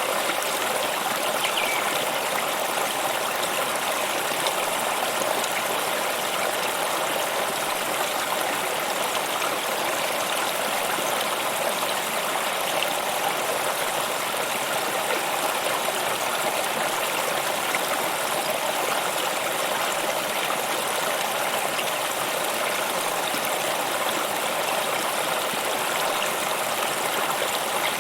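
Stream of water flowing steadily, an even rushing and trickling that does not change.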